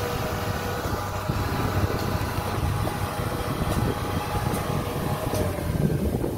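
Kubota DC-70 crawler combine harvester's diesel engine running steadily as the machine drives along on its tracks.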